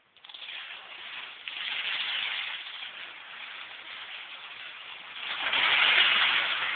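Chain of colourful plastic toy dominoes toppling one after another after a finger tips the first: a continuous dense clatter that swells about two seconds in and is loudest near the end.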